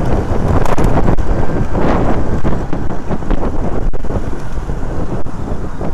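Wind buffeting the microphone on a moving Hero motor scooter, over the scooter's running and road noise, with a brief louder swell about two seconds in.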